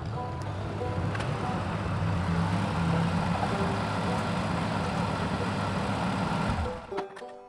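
Old Ford N-series farm tractor's engine running steadily as the tractor pulls in, then shut off, cutting out suddenly near the end. Banjo music starts right after.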